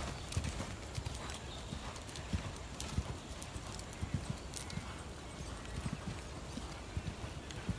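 Hoofbeats of a horse cantering on a sand arena: irregular dull thuds.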